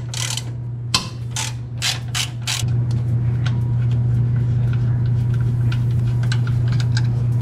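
Hand ratchet clicking as a bolt on the intake bracket is worked loose: a run of loud, sharp clicks in the first few seconds, then fainter, quicker ticks. A steady low hum runs underneath and gets louder a little over halfway through the first three seconds.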